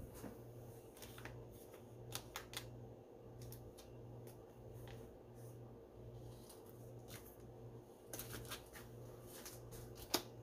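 Faint scattered clicks and rustles of small objects being handled, over a low hum that pulses about once a second.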